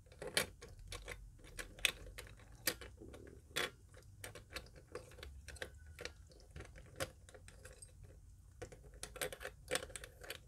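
Irregular sharp clicks and taps of small plastic Rubik's Cube pieces being handled and clipped back into the cube, with a run of quicker clicks near the end.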